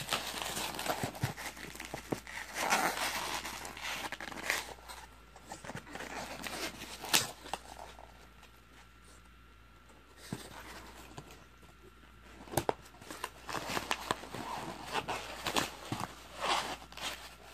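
Plastic wrapping and styrofoam packing rustling, crinkling and squeaking as hands dig a bobblehead out of a packed box, with scattered sharp clicks and knocks. It goes quieter for a couple of seconds in the middle, then the handling picks up again.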